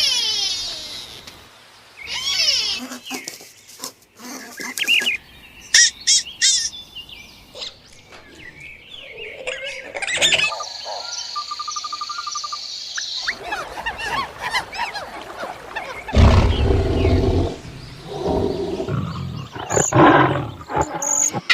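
A run of different animal calls one after another: short chirping and trilling calls early on, a steady high pulsing call in the middle, and a loud, low, deep call about sixteen seconds in.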